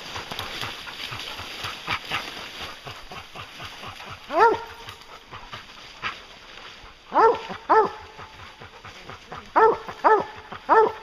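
Hunting hounds barking at a black bear cub treed above them: about six short single barks, the first about four seconds in and the rest coming faster near the end, the tree bark of hounds holding a bear up a tree.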